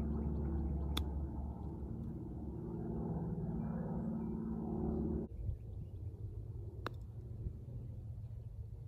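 Two crisp clicks of a golf club striking the ball on short chip shots, about a second in and again near the end, over a low steady rumble that stops abruptly about five seconds in.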